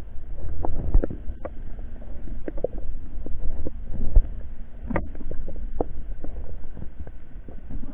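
Underwater sound through a camera housing: a steady low rumble of moving water with irregular clicks and knocks, one sharper knock about five seconds in.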